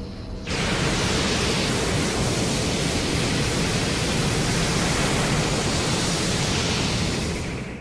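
Godzilla's atomic breath sound effect: a rushing hiss that starts suddenly about half a second in, holds steady for about seven seconds, then fades out.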